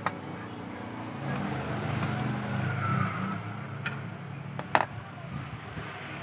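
A motor vehicle's engine passing by, swelling about a second in and fading again after about four seconds. A sharp click comes near the end.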